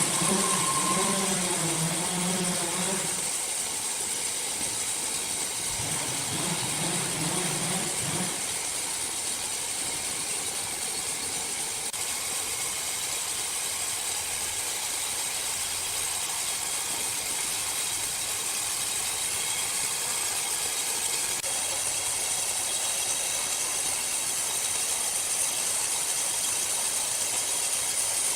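Sawmill machinery running with a steady hiss. A wavering pitched sound rides over it for the first three seconds and again about six to eight seconds in.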